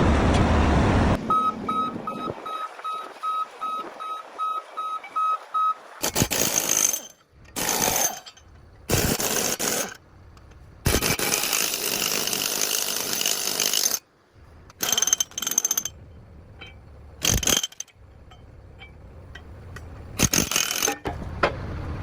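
Heavy-equipment track work on a Caterpillar D11T bulldozer. An alarm beeps about three times a second for several seconds, then a run of loud, noisy clattering and hissing sections, each starting and stopping abruptly.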